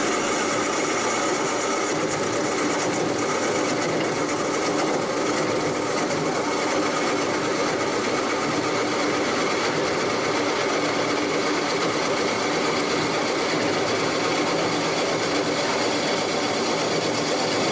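CNC turning lathe running steadily, a continuous mechanical noise that holds the same level without pause.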